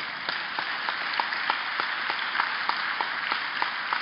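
Audience applauding, with sharp claps about three a second standing out above the steady patter of many hands.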